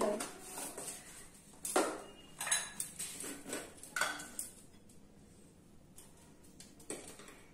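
Spoon and small container clicking and tapping against a mixing bowl while baking powder is measured out: several sharp taps and clinks in the first four seconds, then mostly quiet with one more tap near the end.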